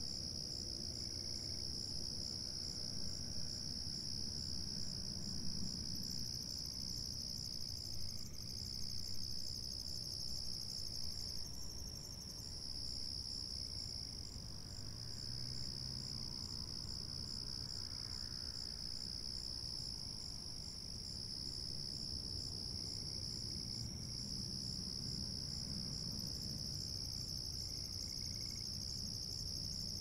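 Night insect chorus: crickets trilling steadily at a high pitch, with a second, faster-pulsing insect call above them, over a faint low rumble.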